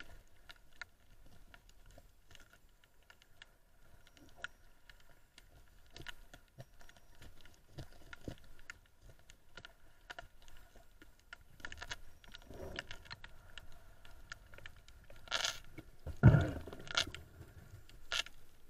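Underwater recording of scattered faint clicks and crackles, with several louder knocks and rustles near the end as a diver's hand grabs an octopus and pulls it from the rocks.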